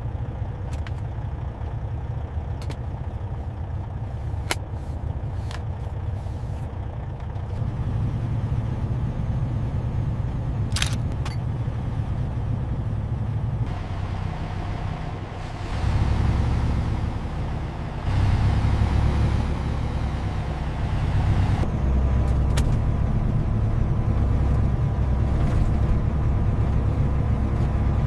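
Diesel engine of a Peterbilt semi truck running with a steady low drone, growing louder about sixteen seconds in. A few sharp clicks sound in the first half.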